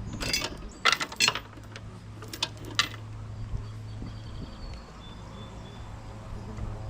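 A few sharp metal clinks and knocks as parts of a mower deck are handled during a drive-belt change, all within the first three seconds, over a steady low hum.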